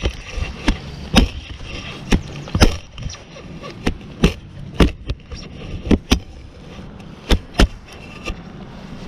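Shovel blade chopping into sod and soil: a dozen or so sharp, irregularly spaced strikes as a hole is cut to recover a metal detector target.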